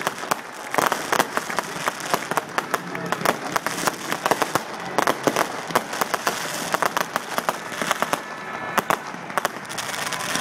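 Aerial fireworks bursting overhead, a dense run of irregular bangs and crackles that goes on without a break.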